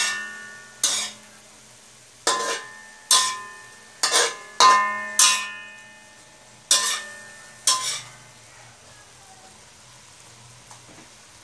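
Metal spatula striking and scraping a metal wok while stir-frying pork, about ten ringing clangs over the first eight seconds, with the meat sizzling in oil underneath. The clanging stops near the end, leaving only the sizzle.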